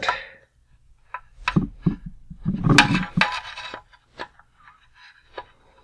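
Hard plastic clicking and scraping as pliers grip and squeeze the peg joint of a gun-turret mount on a 1988 G.I. Joe Cobra BUGG toy, working it loose from the hull. Short irregular clicks, with a busier run of clacks around two to three seconds in and only a few faint ticks near the end.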